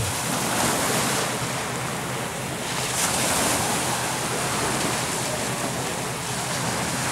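Small sea waves breaking and washing onto the shore, one wash louder about three seconds in, with some wind on the microphone.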